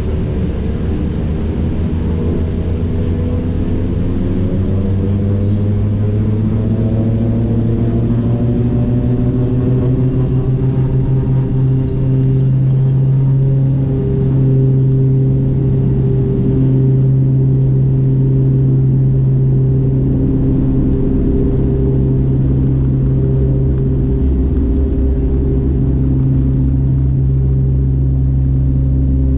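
Twin PT6A turboprop engines and propellers of a King Air A100, heard from inside the cockpit as a loud, steady drone. Its pitch rises over the first ten seconds or so, then holds steady.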